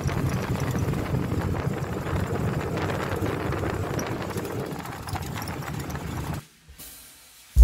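Moving vehicle's engine and road rumble heard from inside the vehicle, cutting off suddenly about six and a half seconds in.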